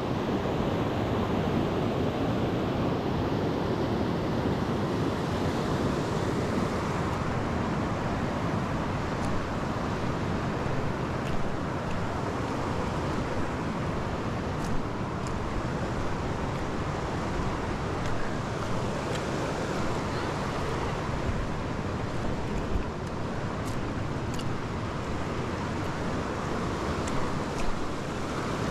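Steady rush of a river's whitewater rapids pouring over granite ledges and rocks, with a few faint clicks.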